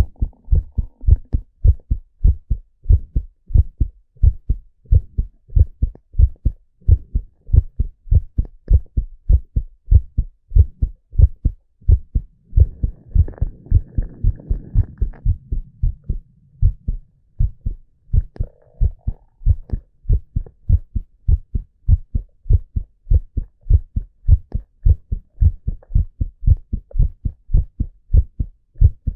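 A man's heart beating in a steady, even rhythm, recorded close up so each beat is a deep thump. A soft low rushing noise runs under the beats for about four seconds near the middle.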